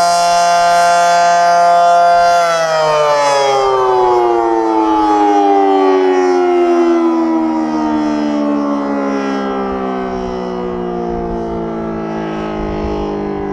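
Federal Signal Model 5T fire siren at full speed holding a steady, loud wail for about two and a half seconds, then winding down with its pitch slowly falling as the rotor coasts.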